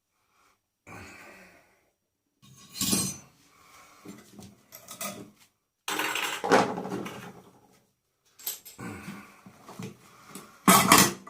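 Scrap metal parts from a stripped microwave clanking as they are tossed and handled: several sharp knocks with a short ring, the loudest about six seconds in and another near the end.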